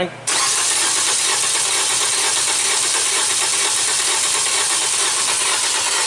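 Nissan Versa's HR15 four-cylinder engine being cranked over by the starter without firing, a steady fast churning that starts suddenly just after the start. It is a crank-no-start: there is no spark, and one cylinder has a dead hole with no compression while the others are low.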